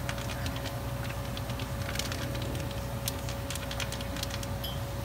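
Diced pork lung sizzling in a hot stainless steel pan, with scattered crackles and pops over a steady low hum.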